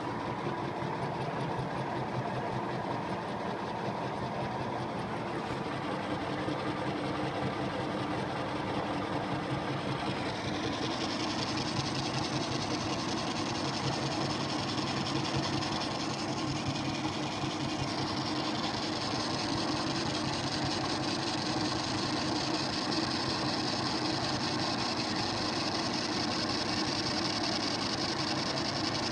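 Restored MS.125 metal lathe running steadily with a continuous mechanical whir. A higher hiss joins about a third of the way in and grows stronger later.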